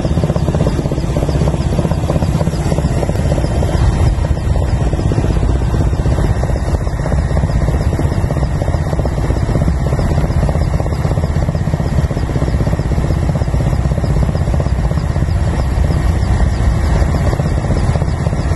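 Steady, loud drone of a propeller aeroplane's engines and propellers heard inside the cabin in flight, a deep rumble with a constant hum over it.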